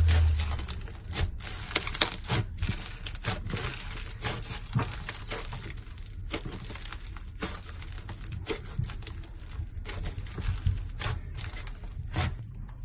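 Slime being handled and squeezed, giving irregular crackling and sharp popping clicks.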